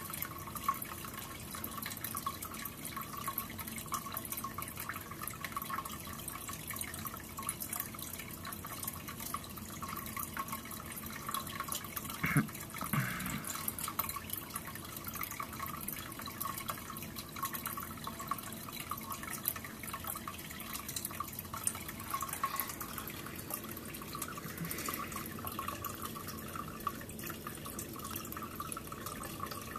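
Aquarium filter running: a steady trickle and splash of water falling back into the tank, with a crackle of small drips throughout. One brief, louder low sound about twelve seconds in.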